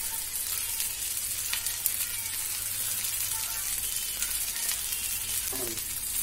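Pieces of Indian mackerel sizzling steadily as they shallow-fry in a little oil in a nonstick pan. A spoon moves among the pieces to turn them in the second half.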